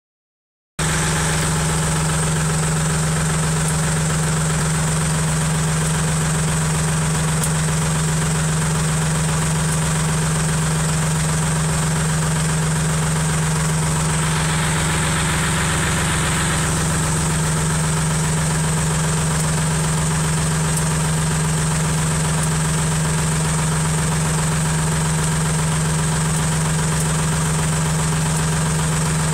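Massey Ferguson 135 tractor engine idling steadily. A short stretch of hiss sits over it about halfway through.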